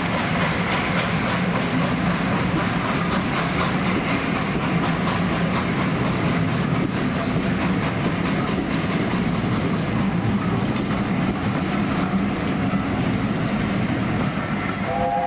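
Passenger train running steadily along the track, a continuous rumble of wheels on rails. Right at the end a multi-note whistle starts to sound.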